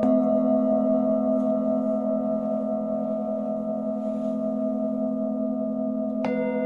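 Singing bowls ringing with long, steady tones and a slowly pulsing low hum. One is struck right at the start and another a little before the end, each adding a bright new ring over the fading sound.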